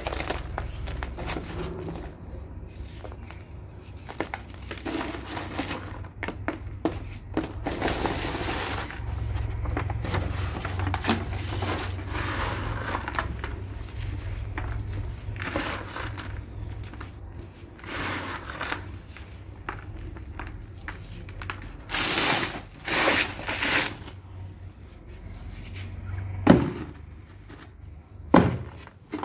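Dry lumps of sand-and-cement mix crumbled and crushed between the fingers: gritty crackling as loose grit falls onto a sheet and into a plastic tub. A few louder bursts of crumbling come about two-thirds through, and two sharp knocks near the end.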